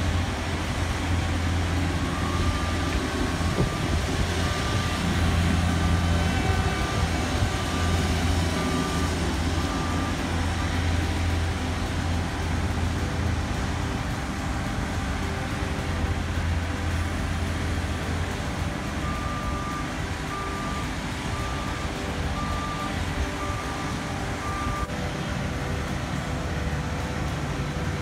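Diesel engines of a Cat asphalt paver and the dump truck feeding it running steadily, with a heavy low drone that eases off about two-thirds of the way through. A backup alarm beeps at a steady pace in two spells, one early and one later.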